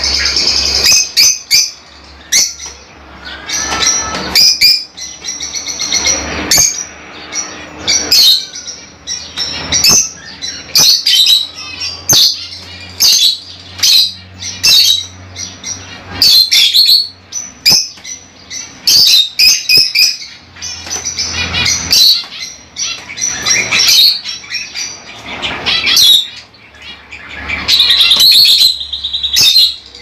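Lovebirds chirping and calling shrilly, short sharp calls following one another in quick succession.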